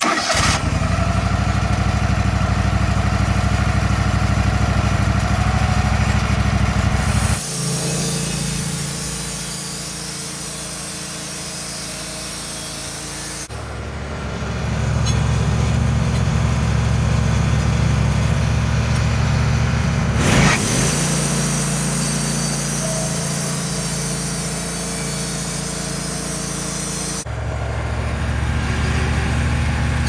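Petrol engine of a Wood-Mizer LT15 portable bandsaw sawmill running at steady speed, starting suddenly. Its sound changes abruptly several times, with a high hiss coming and going.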